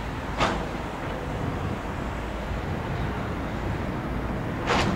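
Airbus A319 jet engines at climb thrust just after takeoff, heard from the ground as a steady low rumble that grows slightly louder. Two brief sharp sounds stand out, about half a second in and near the end.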